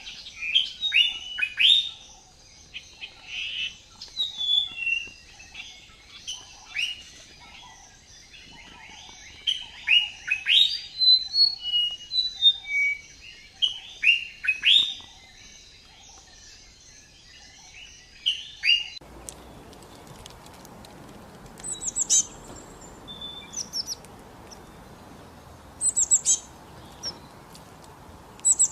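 Birds chirping: a busy run of short, quick downward-sweeping chirps and calls. About two-thirds of the way through the background changes abruptly, and after that only a few brief, higher-pitched chirps are heard.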